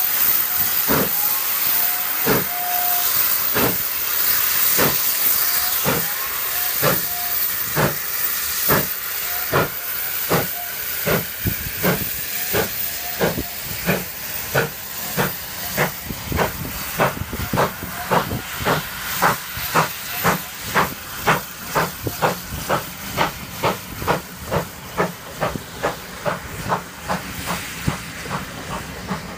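Steam locomotive No. 6960 Raveningham Hall, a GWR Modified Hall 4-6-0, pulling away from a standstill: sharp exhaust beats from its chimney over a steady hiss of steam. The beats quicken evenly from about one every second and a bit to two or three a second as the train gathers speed.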